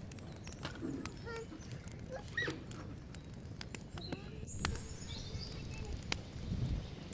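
Scattered sharp clicks and light rustling of cardboard pieces being handled, with a few short bird chirps in the background.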